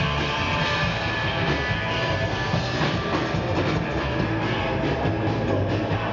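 Live rockabilly band playing: hollow-body electric guitar over upright bass and a drum kit.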